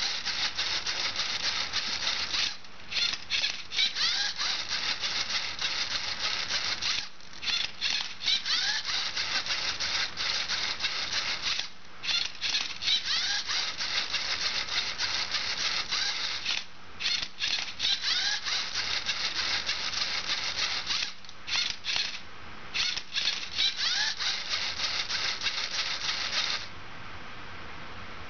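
LEGO Mindstorms robot's servo motors whirring in quick, stop-start runs as its turntable and tilting arm turn a Rubik's cube, with the plastic parts and cube rattling; the machine falls silent about 27 seconds in.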